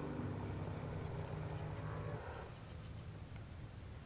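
Backpacking gas canister stove burning under a pot of water, a steady low rush that fades about two seconds in. A fast series of faint high chirps repeats in the background.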